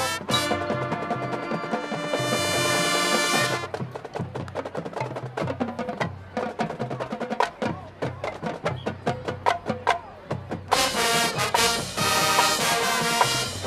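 High school marching band playing: the brass hold a long chord, then the brass drop out for a percussion passage of sharp clicks and drum hits, and the full band comes back in near the end.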